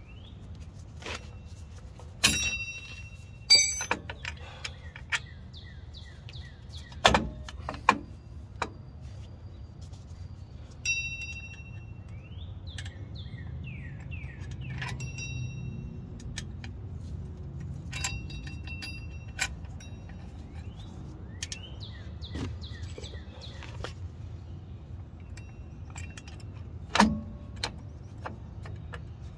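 Steel drum brake springs, adjuster cable and hardware clinking and jangling as they are handled and hooked onto the shoes of a 1995 Ford F150's rear drum brake. There are about a dozen sharp metal clinks, several of them briefly ringing.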